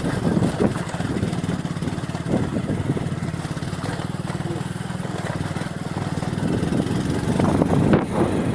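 Hero HF Deluxe motorcycle's small single-cylinder four-stroke engine running steadily as the bike is ridden, growing louder in the last couple of seconds.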